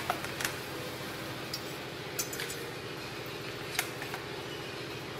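A few scattered light clicks and clinks as a knife and plastic plates are handled on a tabletop, over a steady low hum.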